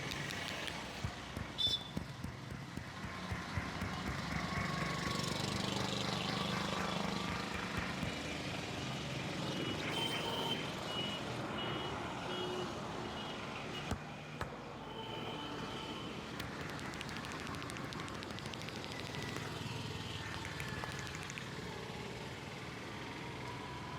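Street traffic noise: vehicles running past, with a string of short high beeps about ten seconds in and a few sharp clicks near the start.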